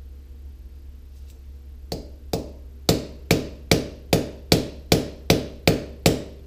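Steel ball-peen hammer striking a thin metal rod used as a drift, driving the motor housing out of a pneumatic pencil grinder's body set on concrete. Two light taps, then nine hard, even blows at about two and a half a second.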